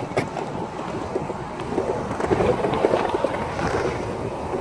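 Skateboard wheels rolling over a concrete bowl: a steady grainy rumble that grows louder about halfway through as the board carves the transitions.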